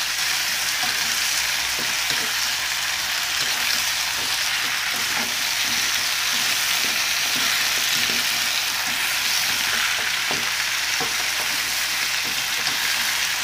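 Pork ribs and chunks of squash and taro sizzling steadily in a hot wok as they are stir-fried, with faint clicks and scrapes of a metal ladle turning them.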